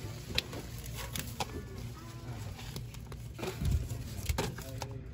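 Shop ambience with a steady low hum, broken by several sharp clicks and rustles of items and the phone being handled close to the microphone. Faint music plays in the background.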